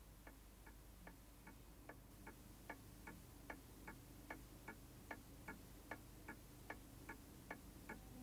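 Faint, even clock ticking, about two and a half ticks a second, over a low steady hum.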